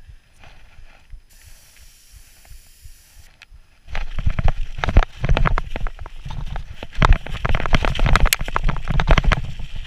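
Orbea Rallon full-suspension mountain bike descending a dirt forest trail at speed: a dense run of clattering and rattling from the bike and tyres over the rough ground, with a heavy rumble of wind on the helmet camera. It starts suddenly about four seconds in, after a quiet stretch with only faint clicks.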